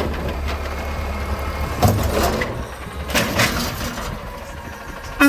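Diesel engine of a side-loader garbage truck running with a steady low rumble, with a few louder clattering bursts about two and three seconds in.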